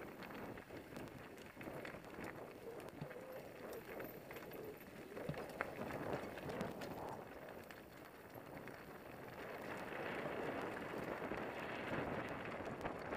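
Downhill mountain bike rolling fast over a dirt forest trail: a steady rush of tyre and wind noise with scattered clicks and knocks from the bike over bumps. It grows louder over the last few seconds as speed builds.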